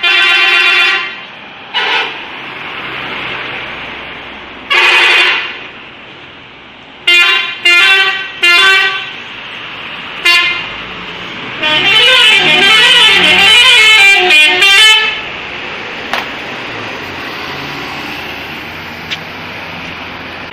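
Bus 'telolet' musical air horn sounding in a series of blasts: several single toots, three quick toots in a row, then a longer warbling tune near the middle. A vehicle engine runs underneath between the blasts.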